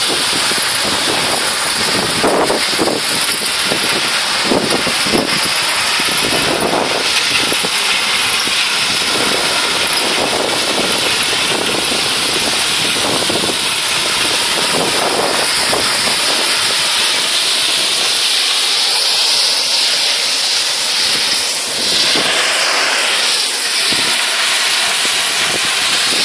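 Mobile rubble screening plants and an excavator running together: a loud, steady mechanical din of diesel engines and vibrating screens, with uneven surges through the first two-thirds that thin out later.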